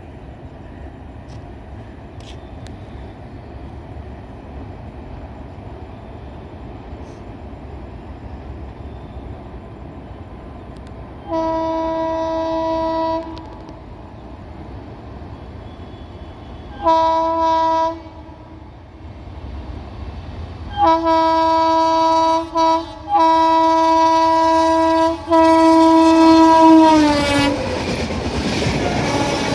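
WAP-7 electric locomotive sounding its horn as it hauls an express train through a station at speed. Under a low rumble of the approaching train comes a blast of about two seconds, a short blast a few seconds later, then a run of blasts with brief breaks from about two-thirds of the way in. The horn's pitch drops as the locomotive passes, and the coaches follow with rising wheel-on-rail noise and clickety-clack.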